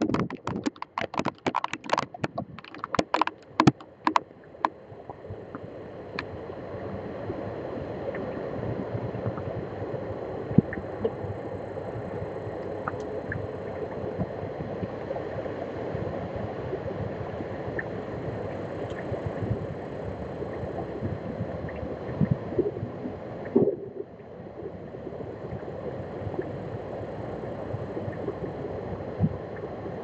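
Heavy rain and strong wind beating on a webcam. For the first few seconds raindrops strike the webcam and its microphone as loud, irregular clicks. Then a steady rushing of wind-driven rain takes over, with scattered small ticks, and drops away suddenly for a moment about three-quarters of the way through.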